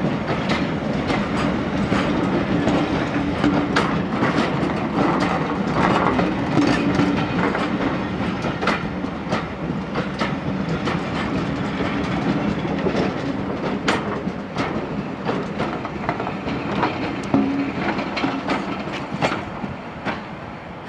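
Heritage passenger train coaches rolling slowly along the track, wheels clicking irregularly over rail joints over a steady low hum, fading a little near the end.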